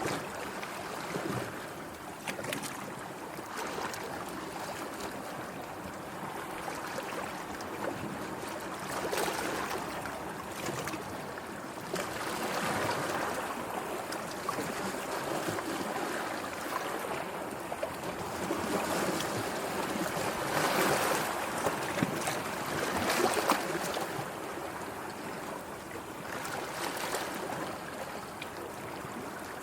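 Sea waves washing in and drawing back, the wash swelling and easing every few seconds, with a few sharp splashes. The biggest surge comes about two-thirds of the way through.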